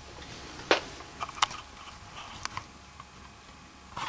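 Camera handling noise around an open computer case: a handful of light clicks and taps, the sharpest a little under a second in, more at about a second and a half and two and a half seconds, and one near the end, over a faint steady hum.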